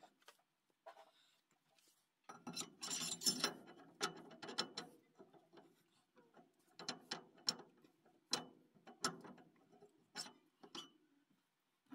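A ratchet wrench being worked: a dense run of clicks and knocks a couple of seconds in, then single clicks spaced out until near the end.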